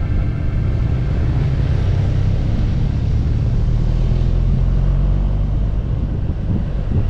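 Motorcycle running at a steady speed on the road: a low, steady rumble of engine and road noise.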